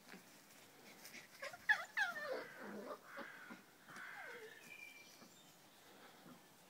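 Puppy yelping and whining while play-fighting with an adult dog. A couple of sharp yelps falling in pitch come about two seconds in, followed by drawn-out whines sliding lower, and another shorter whine around four seconds.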